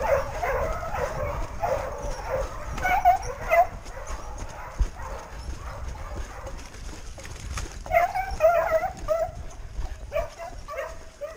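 Running hounds baying in bursts of high, yelping cries, the sound of the pack giving tongue on a wild boar's trail. The cries come in clusters: at the start, about three seconds in, and again from about eight seconds.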